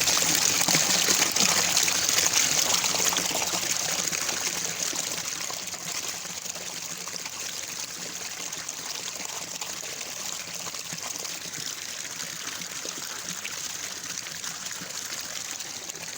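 Rushing water: a steady, hissing flow that gets quieter over the first few seconds, then holds steady.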